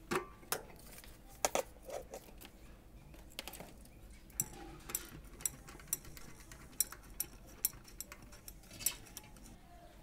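Light metallic clicks and taps, about a dozen at irregular intervals, as hands work an electric water heater's heating-element flange loose from the tank, metal knocking on metal.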